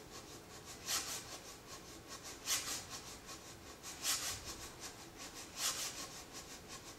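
Nylon brushes swept and rubbed across the wooden playing face of a box cajon in a quiet groove. A steady soft swish has a brighter accented stroke about every one and a half seconds.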